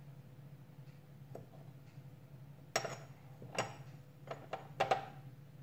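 A handful of light, sharp clinks of kitchen utensils, a spoon and spice containers, in two small clusters, over a steady low hum.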